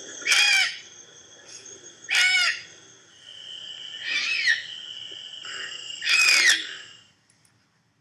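Barn owl screeching: four harsh, rasping screams about two seconds apart, each lasting about half a second.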